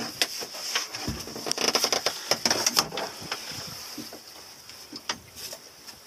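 Handling noise from hands and pliers working at a sea turtle's nostril: scattered clicks and rustles, thick in the first three seconds and thinning out, over a steady high hiss.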